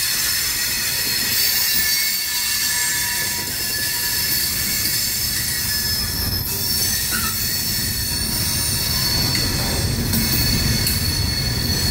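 Freight train cars rolling past on the rails: a steady low rumble with several high-pitched steady tones of wheel squeal over it.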